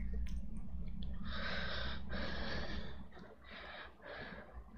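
A reciter breathing close into a headset microphone in a pause of the recitation: a few breaths of airy hiss, over a steady low electrical hum.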